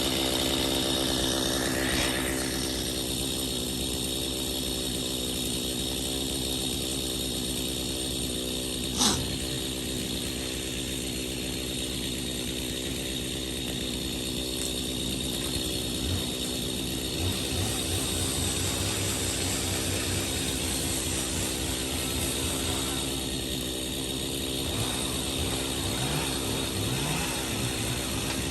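Chainsaw engine running steadily, with one sharp knock about nine seconds in.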